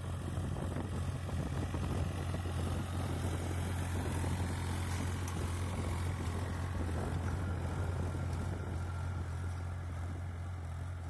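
New Holland 3600-2 TX tractor's three-cylinder diesel engine running steadily with a low drone while it pulls a tine cultivator through ploughed soil.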